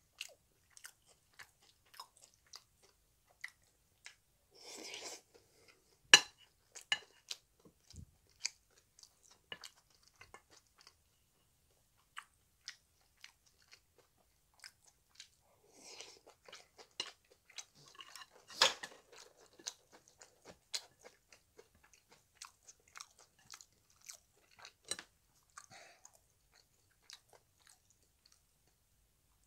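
Close chewing and biting of kimchi fried rice and jjapaghetti noodles: soft mouth clicks and crunches at irregular intervals. Two sharper, louder clicks stand out, about six seconds in and about two-thirds of the way through.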